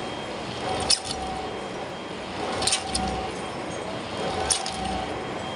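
Large metal lathe turning a big steel sleeve, with a metallic clink and a brief ringing tone repeating evenly about every second and three quarters over a steady machine background.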